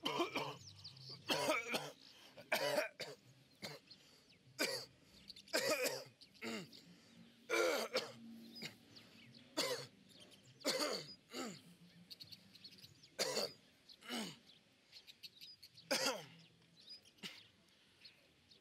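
A man coughing and clearing his throat again and again, short sudden coughs about once a second or so.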